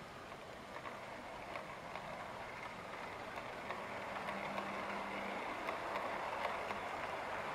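Model railway coaches rolling along the track: a steady rumble of wheels on rail with a few faint clicks, growing gradually louder as the train passes.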